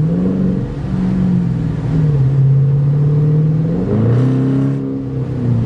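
Dodge Charger's Hemi V8 under hard acceleration, the revs rising and falling back several times. The throttle is sharpened by a Pedal Box throttle controller in Sport Mode Plus.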